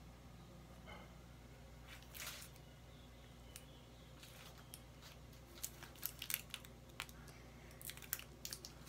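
Faint handling noises of makeup being applied: a brief scratchy rustle about two seconds in, then a run of small sharp clicks and taps from about halfway on. These come from makeup items and a plastic hand mirror being handled, over a steady low hum.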